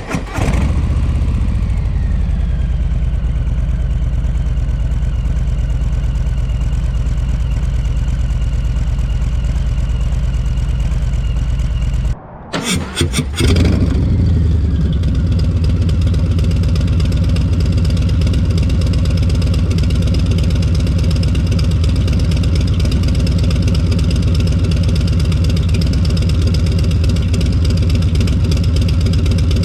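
Harley-Davidson Low Rider S's Milwaukee-Eight 114 V-twin through a TBR Turnout 2-into-1 exhaust: a rev that falls away into a steady idle, then after a short break about twelve seconds in, several quick throttle blips and a louder steady idle again.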